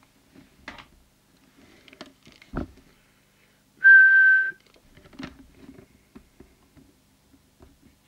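A person whistles one steady note into the CB walkie-talkie's microphone for about three quarters of a second, about four seconds in. This is the whistle test used as a steady signal while setting the transmitter's FM deviation. A sharp knock comes about a second and a half before the whistle, with faint clicks from handling the radio.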